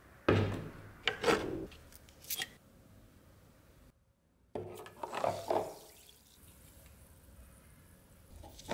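An enamel bowl is set down on a wooden workbench with a sharp knock, followed by a few lighter clinks. An iron axe head is then lowered into soda water in the bowl, with a short splash and knocks of metal against the enamel.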